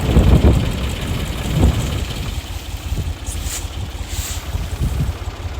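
Ford farm tractor's diesel engine running with a rapid, even low beat, louder for the first two seconds and then easing off.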